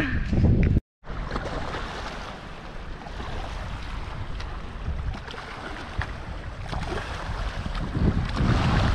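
Wind buffeting the microphone over choppy water lapping against a rocky shore, with a stronger gust near the end. The sound drops out briefly about a second in.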